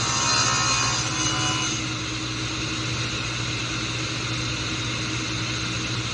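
Sliding table saw running: the spinning blade finishes its cut through a wooden board with a louder, hissy cutting noise for about the first two seconds. Then the saw runs on steadily without load, with a low motor hum.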